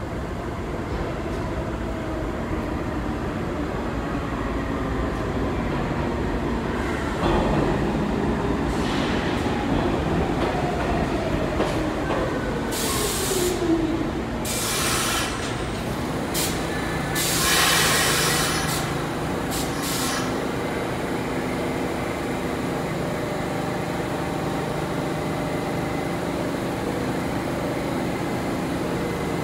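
Pullman Standard R46 subway train pulling into an underground station: a rumble of wheels on the rails, with the motors' whine falling in pitch as it slows. About halfway through come several bursts of hissing and squealing from the brakes as it stops, then a steady hum as it stands at the platform.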